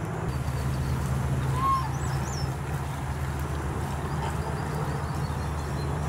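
A steady low motor-like rumble, with a short whistled note and two thin high chirps about two seconds in.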